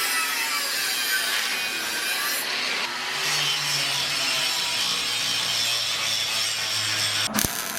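Angle grinder grinding the steel frame rail clean where the old steering-box brackets were removed, its pitch wavering as it bites and eases off. It stops abruptly near the end.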